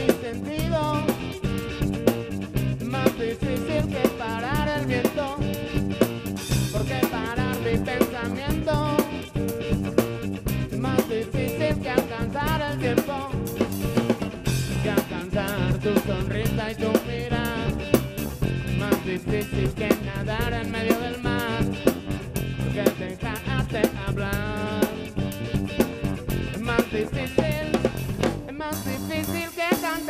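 A live band playing an upbeat dance song, with drum kit, guitar and a metal güiro scraped in rhythm.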